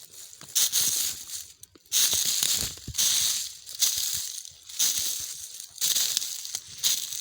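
Footsteps crunching through dry fallen leaves, one crackling step about every second.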